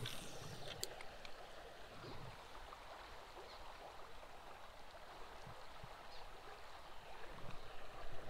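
Faint, even hiss of flowing creek water, with a couple of soft clicks.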